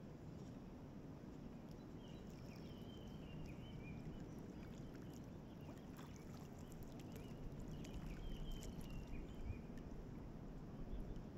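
Kayak paddle strokes in calm river water: light splashes and drips over a low steady rumble, with faint birdsong chirping in two short spells.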